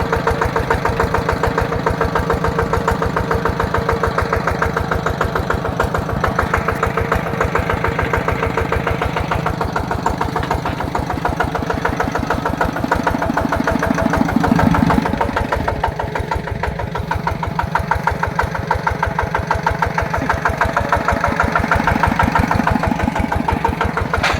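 Yanmar TF120 single-cylinder diesel engine on a two-wheel walking tractor, running steadily with rapid, even chugging. Around the middle it briefly gets louder and deeper, then settles back.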